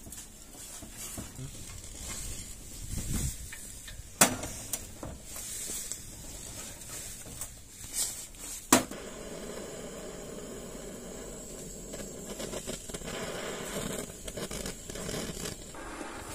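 A few knocks and sharp clicks, then, from just after a sharp click about nine seconds in, the steady hiss of a handheld canister gas torch burning. Its flame is heating a dented motorcycle wheel rim to straighten it.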